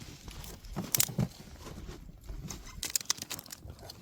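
Kindling of a newly lit campfire crackling and snapping, in scattered sharp cracks clustered about a second in and again near the end, with rustling in between.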